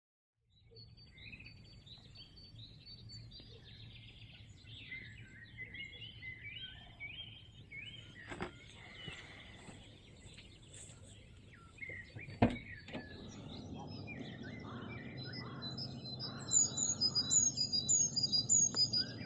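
Several songbirds singing, many short chirping calls overlapping, with one bird close by singing a quick run of loud, high notes near the end. Two sharp clicks stand out, and a low steady rush comes up in the second half.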